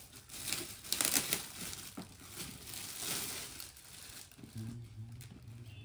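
Gift wrapping crinkling and rustling as a present is unwrapped by hand, a dense crackle that is loudest about a second in and dies down after about three seconds.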